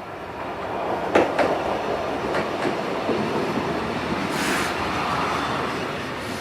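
Train running on rails: a steady rumble with sharp clicks, a few near the first and third seconds, and a short hiss about four seconds in.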